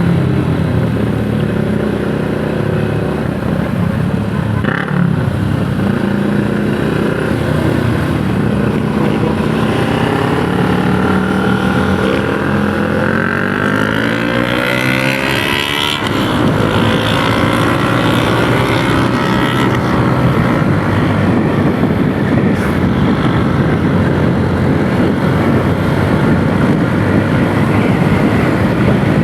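Yamaha YTX 125 cafe racer's single-cylinder four-stroke engine under way, with rising pitch as it revs up in one long pull about halfway through, then dropping suddenly. Wind and road noise grow louder after the drop.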